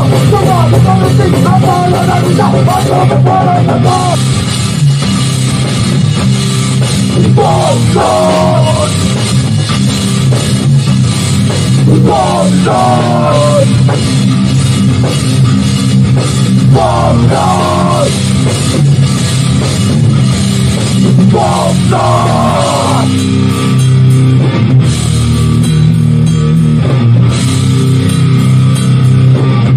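Hardcore punk band playing live in a rehearsal studio: electric guitars and a drum kit in an instrumental passage with no vocals. A wavering, bent-note lead guitar figure comes back about every four and a half seconds over the riff.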